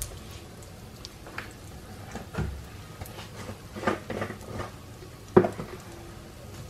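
Steady sizzle of rice and chopped garlic toasting in hot oil in a frying pan, at the stage of browning the rice until golden. A few short sharp clicks break in, the loudest about five seconds in.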